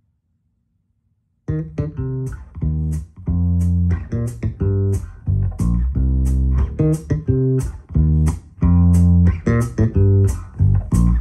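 Music played back through a homemade slot-loaded open-baffle (SLOB) dipole loudspeaker. After about a second and a half of near silence, a track begins with a deep bass line and plucked guitar notes.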